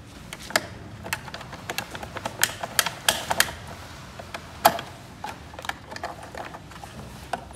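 Plastic clicks and snaps from a Wuling Almaz side mirror housing being pried apart with a plastic trim tool. The irregular sharp clicks come as its clips give, with one louder snap a little past halfway.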